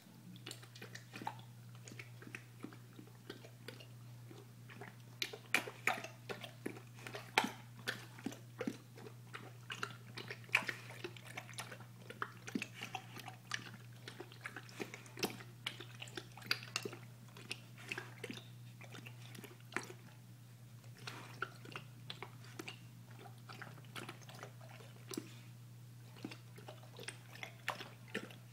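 A pit bull lapping and snapping at floating treats in a stainless steel bowl of water: irregular wet clicks, slurps and chewing, thinning out in the second half, over a steady low hum.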